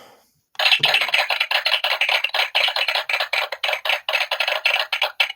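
Recorded applause played from a sound-effects machine's small speaker, thin with no low end; it starts about half a second in and cuts off abruptly near the end.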